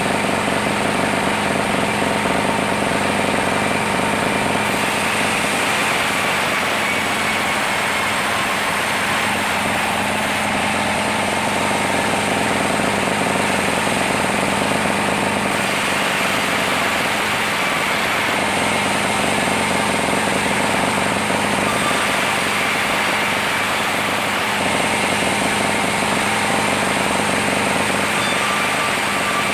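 Sawmill machinery running steadily while milling a large saman log into boards: an engine-driven saw with a constant mechanical hum and several held tones.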